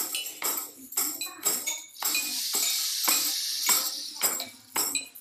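Clinking, jingling percussion: sharp metallic strikes about twice a second, joined by a steady shaking jingle from about two seconds in.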